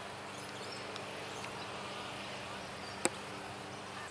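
High-pitched insect buzzing that comes and goes in pulses, over a faint steady low hum, with a single sharp click about three seconds in.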